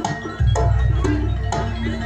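Jaranan dance music: a Javanese percussion ensemble with drum strokes and struck pitched tones over a steady low drone. It grows louder about half a second in.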